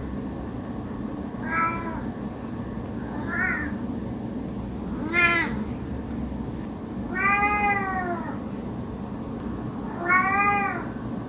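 Domestic cat meowing, five separate meows about two seconds apart, the fourth one the longest, over a steady low background hiss.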